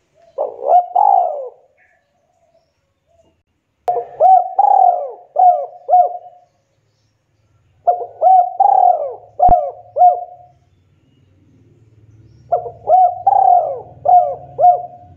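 Spotted dove cooing: four loud phrases of short, arched coos, the first phrase with two notes and the other three with four or five notes each, separated by pauses of about two seconds.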